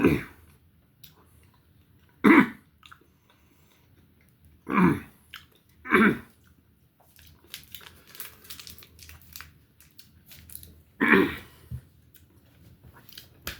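A man chewing a bite of a hot, spicy meat snack stick, with about five short loud coughs spread through, the pepper heat catching his throat. Quiet wet chewing clicks fill the gaps between the coughs.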